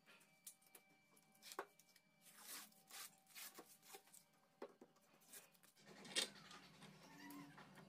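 Quiet handling noises of a sandpaper strip being cut with a utility knife and pressed onto a wooden jig: soft rustles and small ticks, with one sharper click about six seconds in.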